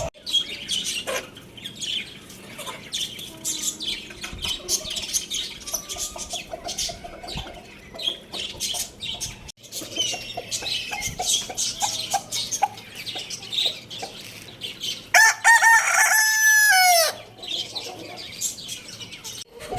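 A rooster crows once, loudly, near the end, a long pitched call that drops in pitch as it finishes. Before it come chicken clucks and small chirps with scattered sharp clicks.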